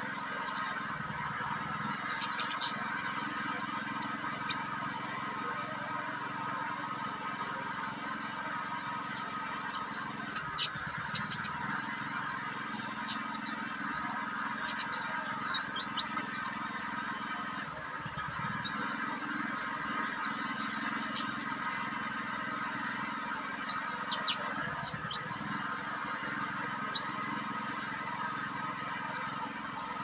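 Juvenile orange-headed thrush (kemade) singing in clusters of short, high, sharp chirps and slurred whistles, reeling off its repertoire of learned phrases, loudest a few seconds in. A steady background drone runs underneath.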